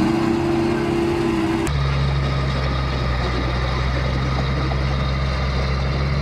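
For the first moment the outboard motors on the canoe raft run with a higher hum. About 1.7 s in there is an abrupt cut to a crawler bulldozer's diesel engine running steadily with a low drone, over the hiss of rushing floodwater.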